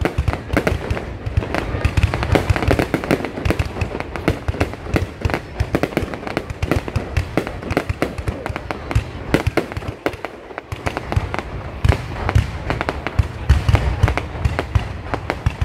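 Aerial fireworks display: a continuous barrage of rapid, overlapping bangs and crackles from bursting shells, easing briefly about ten seconds in before building again.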